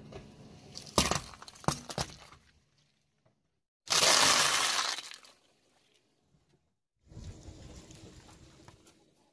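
A car tyre crushing things in three short separate takes with silent gaps between them. First potatoes crack and squash, with two sharp cracks. Then comes a loud, dense crackle as uncooked spaghetti sticks standing in a block snap all at once. Last, a wrapped ice cream cone crunches more quietly.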